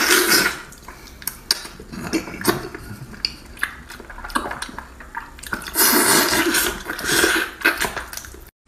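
Close-miked wet eating sounds: lip smacking, sucking and chewing while gelatinous braised meat and skin are pulled off the bone with the mouth. There are irregular sticky clicks and smacks, with longer loud slurping stretches at the very start and about six seconds in. The sound cuts out briefly just before the end.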